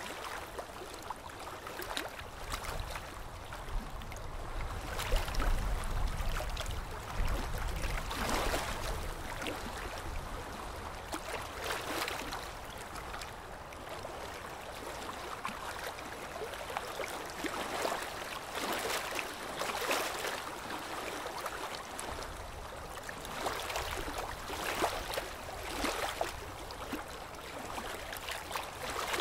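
Water sloshing and splashing in repeated surges every second or two, over a low rumble that swells a few seconds in and then eases.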